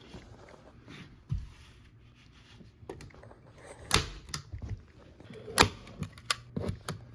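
Staple gun firing staples through carpet into plywood: a series of sharp snaps, irregularly spaced and coming more often in the second half, with a duller knock before them.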